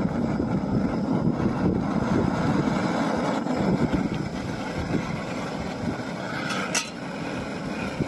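Small gas canister backpacking stove burning with a steady hiss. Near the end a metal kettle clinks down onto its pot supports.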